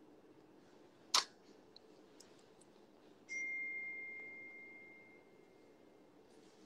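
A sharp click about a second in, then a single high ding about three seconds in that rings out and fades over about two seconds.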